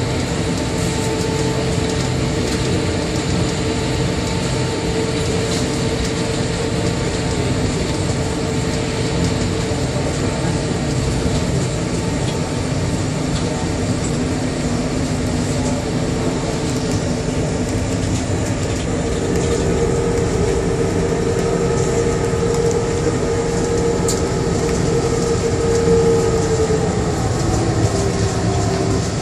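Bombardier Innovia APM 100 rubber-tyred people-mover car running between stations, heard from inside: a steady rumble of the tyres on the guideway, with a motor hum made of two steady tones. The hum changes about two-thirds of the way in and drops in pitch near the end.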